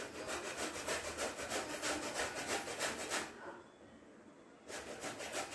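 A whole guava grated on a handheld metal grater: quick, even scraping strokes, about five a second. The strokes stop for about a second midway, then start again.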